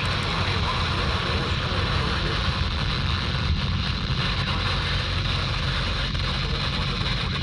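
Steady hiss of radio static with a low hum underneath, from a weather radio receiver between broadcasts.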